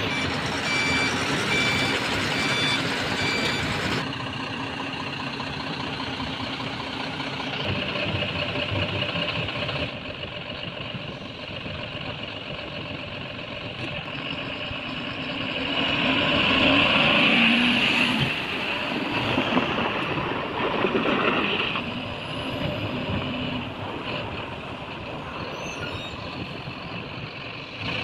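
Diesel engine of a BharatBenz tipper truck running as the truck moves, with a repeating electronic beep during the first four seconds. The engine noise grows louder for a couple of seconds a little past halfway.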